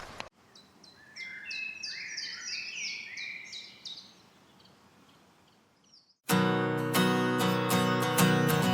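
Birdsong: a run of quick high chirps and short sliding whistles for about three seconds, fading out. About six seconds in, loud strummed acoustic guitar music starts.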